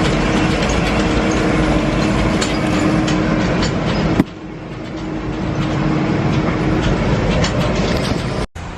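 Rumble and rattle of a moving hayride wagon over rough ground, with a steady engine hum underneath and scattered clicks. The noise drops suddenly a little after four seconds, then builds back up.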